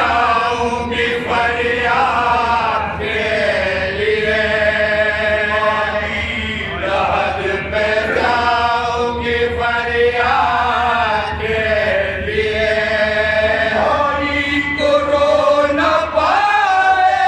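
Several men chanting a marsiya, an Urdu elegy for Imam Husain, in unison and without instruments, drawing out long held notes.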